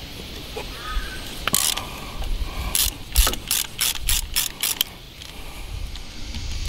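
Spanner working a bolt on a tractor's steering column cover plate: a short metallic scrape about a second and a half in, then a run of about seven sharp clicks, roughly three a second, as the bolt is worked loose.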